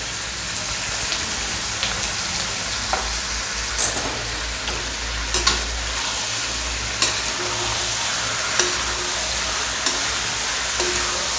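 Chicken pieces sizzling in hot mustard oil in a metal kadhai, stirred with a metal ladle that scrapes and knocks against the pan every second or two, while the chicken's water cooks off.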